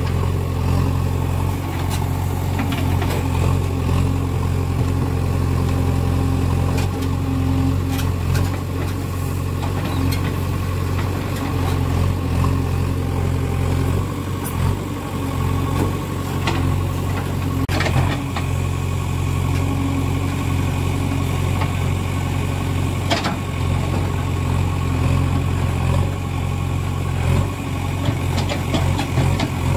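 Diesel engine of a JCB 3DX backhoe loader running steadily, with a few sharp knocks over the top.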